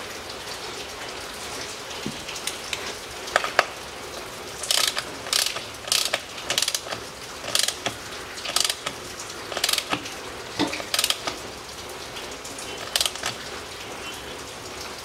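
Ratchet wrench clicking in short runs, about once a second, as its handle is swung back while screwing in the transfer case drain plug of a 2008 Audi Q7. The plug is a tapered plug coated with sealant.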